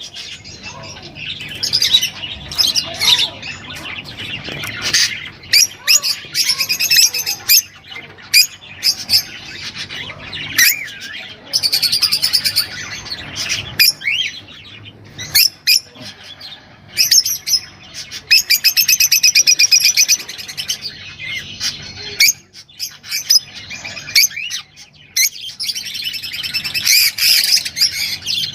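Cage birds chirping and trilling busily, with quick high calls overlapping and the odd harsher squawk, as in a song recording played to pet birds to get them singing.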